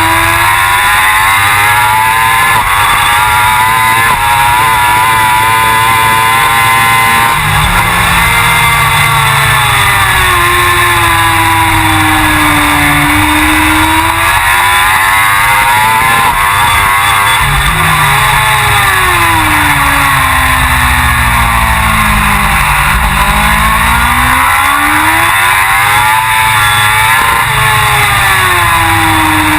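Suzuki GSX-R1000 superbike's inline-four engine at racing speed. It revs up through the gears and drops back on downshifts into corners, the pitch rising and falling again and again, with a long fall to its lowest point just past the middle. A constant rush of noise sits beneath the engine.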